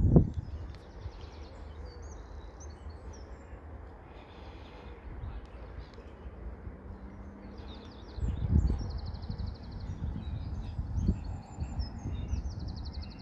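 Small birds singing outdoors, with repeated high trills and chirps, over low wind rumble on the microphone that swells sharply at the start and again about eight seconds in.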